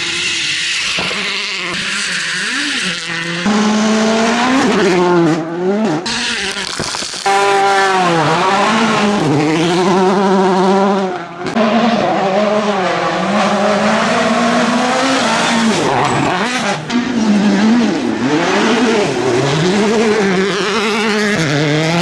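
World Rally Cars, turbocharged 1.6-litre four-cylinders, racing past one after another on a gravel stage. The engines rev hard, their pitch climbing and dropping repeatedly through gear changes, over tyres scrabbling on loose gravel. The sound changes abruptly several times as one car's pass gives way to the next.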